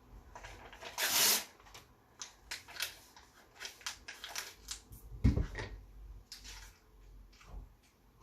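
A printed paper picture being bitten and chewed: irregular crackly crunches and paper crinkles, with a longer rasping burst about a second in.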